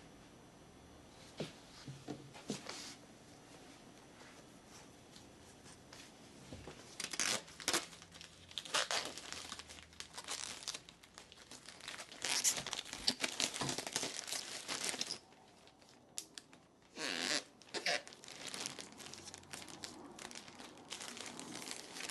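Packaging being handled: crinkling and tearing of plastic or paper in bursts, the first about seven seconds in and another after a short pause.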